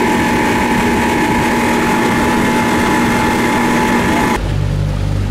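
Motorboat engine running under way: a loud, steady rush with a steady whine over it. It cuts off abruptly about four seconds in to a lower, steady hum.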